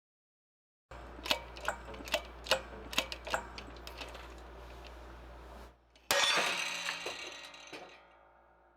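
Metal parts clicking and knocking as a hydraulic press is set up to push a rubber prop hub through a 3D-printed plastic funnel. About six seconds in comes a sudden loud crack that rings and fades over about two seconds, under a low steady hum.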